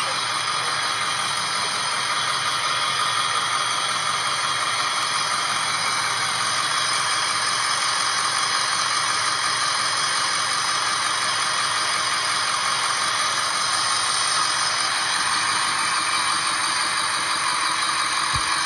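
School bus rattling steadily and without let-up, a continuous clatter of loose parts as it runs.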